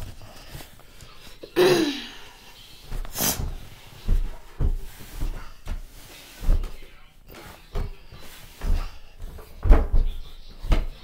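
Footsteps thudding down a staircase, irregular and about one or two a second, with a short falling squeak about two seconds in.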